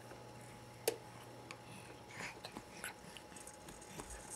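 Faint handling sounds of a baby playing with a toy gumball machine: one sharp plastic click about a second in, then a few soft taps and rustles.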